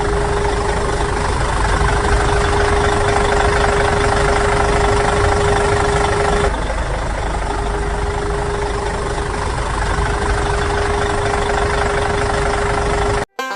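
An engine running steadily at idle, with a constant whine over it. The whine drops out for about a second midway, and the engine sound stops abruptly near the end.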